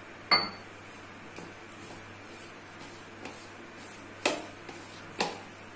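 Hand mixing besan (gram flour) and water into a stiff dough in a bowl, the mixing itself faint. Three sharp clicks against the bowl stand out: the loudest, with a brief high ring, about a third of a second in, and two more near the end.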